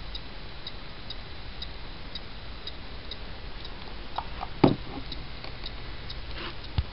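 Steady light ticking, about two ticks a second, with a knock about two-thirds of the way through and a smaller one near the end as the handheld meter is moved about.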